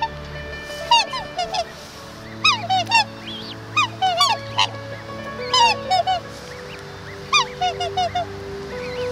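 Black swans calling: clusters of short, high calls that rise and fall, several in quick succession, coming in bursts about once a second. Steady held music tones run underneath.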